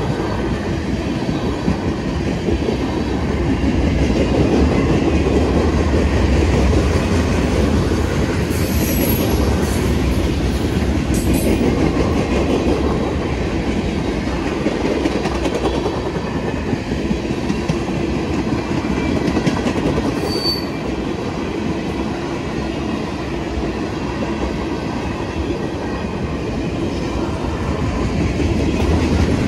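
Freight train cars (tank cars, a gondola and a centerbeam flatcar) rolling steadily past at a grade crossing, with a rumble and wheels clattering over the rail joints. Brief high wheel squeals come about a third of the way in and again about two-thirds of the way in.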